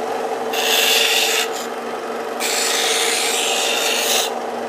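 Belt sander running with a steady hum while a piece of wood is pressed against the moving belt twice, giving a loud rasping grind for about a second and then for about two seconds, as the edge is rounded over.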